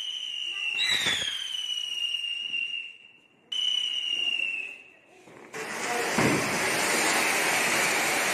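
Whistling firecrackers on the ground give high whistles that slowly fall in pitch, three in turn. From about two-thirds of the way in, a flower pot (anar) fountain sprays sparks with a steady, loud hiss.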